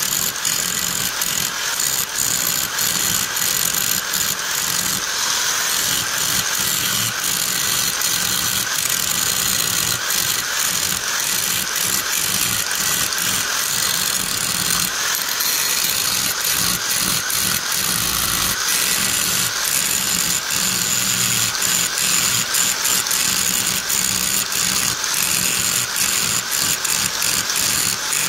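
Angle grinder with an abrasive disc grinding steel on a gear's teeth, shaping the welded-up repair: a steady, loud running whine and grinding hiss, broken by frequent sharp ticks as the disc meets the teeth.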